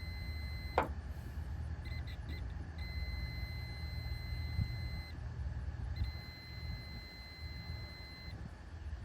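Multimeter's continuity beeper sounding as its probes touch the terminals of new fuel injectors. A steady high beep cuts off with a click about a second in, followed by a few broken chirps and then two long beeps of about two seconds each. The beeps show the injector coils are intact, not open like the bad one.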